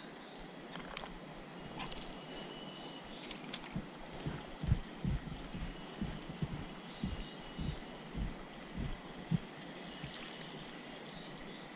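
Steady high-pitched insect chirring, with irregular soft low thumps through the middle.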